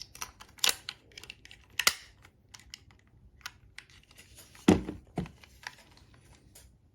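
Irregular plastic clicks and knocks of hands handling a Bandai DX Den-O toy belt while struggling to fit AAA batteries into it, with one louder, deeper knock about two-thirds of the way in.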